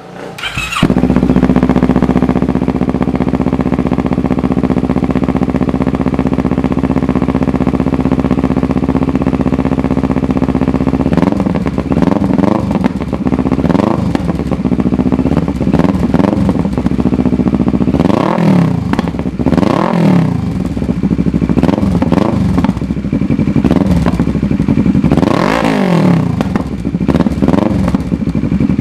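Kawasaki ER-6n's parallel-twin engine breathing through a LeoVince aftermarket muffler: it starts up about a second in, idles steadily for about ten seconds, then is revved in a series of throttle blips, each a quick rise and fall in pitch.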